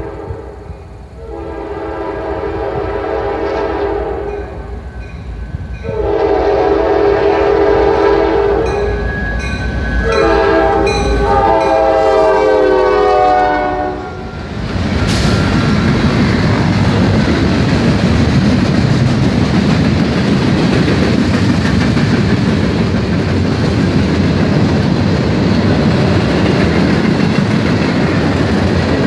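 Norfolk Southern locomotive horn sounding three long blasts as the train approaches, the pitch of the last one dropping as the locomotive goes by. It is followed by the loud, steady rumble and clatter of the train's cars rolling past.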